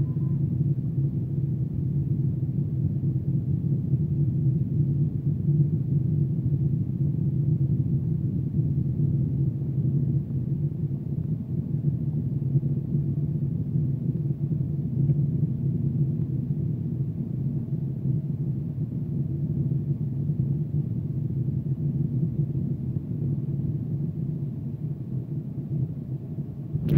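Steady low cabin drone of an Airbus A330 in flight, heard from inside the passenger cabin: its Rolls-Royce Trent 700 engines and the airflow over the fuselage make an even, unchanging rumble.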